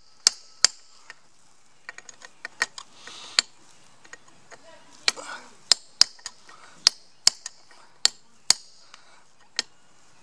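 A hammer tapping a steel punch held on the end of a motorcycle chain's connecting-link pin, cold-forming the pin end into a rivet head. About a dozen sharp metallic taps at uneven intervals, with a run of lighter, quicker taps around two seconds in.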